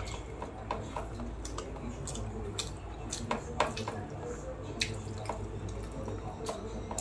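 Person eating rice and fish by hand: wet chewing and lip-smacking with fingers working the rice on a steel plate, heard as irregular sharp clicks and smacks over a low steady hum.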